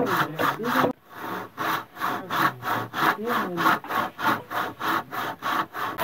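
Handsaw cutting through a timber beam in steady back-and-forth strokes, about two and a half a second, with a short break about a second in.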